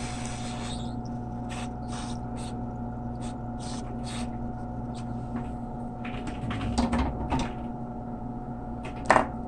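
Steady hum of bench equipment while heat-shrink tubing is shrunk over soldered D-SUB connector joints. Over the hum come light scattered clicks and taps of handling, a louder clatter about two-thirds of the way through, and a sharp click near the end.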